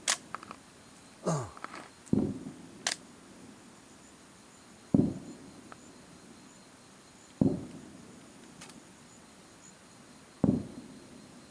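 Aerial fireworks shells bursting in a display: four sharp booms about every two and a half to three seconds, each trailing off in a low echo, with a few sharper cracks in the first three seconds.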